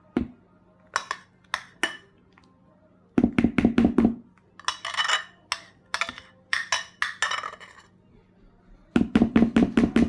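Spatula and mixing bowls knocking and clinking as whipped cream is scooped out and scraped into cake batter. There are scattered clicks, a quick run of rapid knocks about three seconds in and another near the end, and scraping in between.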